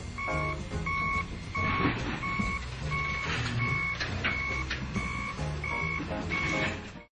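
A vehicle's reversing alarm beeping steadily, about one and a half beeps a second, with a few sharp clanks around four seconds in. The sound cuts off abruptly just before the end.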